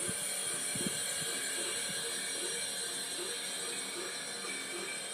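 G-scale model railway equipment running: a steady mechanical hiss with a faint low pattern repeating about twice a second, after a few light knocks in the first second or so.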